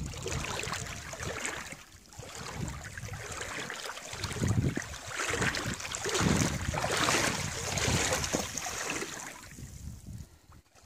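Wind buffeting the microphone over the rush of river water, in gusts that rise and fall, dropping away briefly about two seconds in and again near the end.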